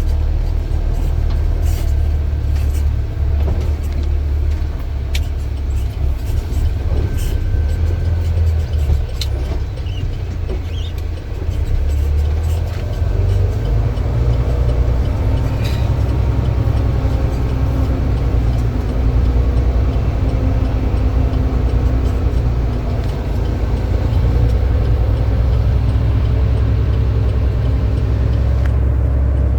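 Heavy diesel engine of earthmoving machinery running steadily, with scattered clanks and knocks in the first half. From about halfway the engine settles into a steadier drone with a held tone.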